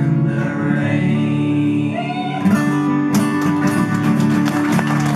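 Two acoustic guitars strumming the closing bars of a country song, the strums turning quick and choppy from about three seconds in.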